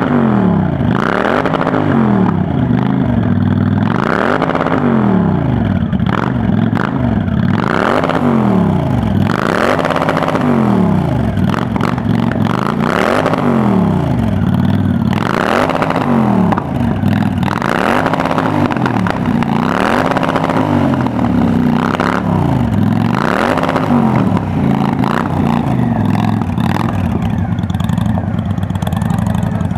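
Honda Black Widow 750's V-twin engine revved in repeated throttle blips through its Cobra exhaust, the revs rising and falling about every two seconds. Near the end it settles to a steady idle.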